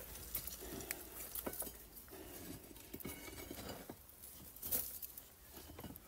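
Faint scraping, rustling and small knocks of a hand groping through dry soil and loose stones in a narrow rock crevice, with the loudest knock about three-quarters of the way through.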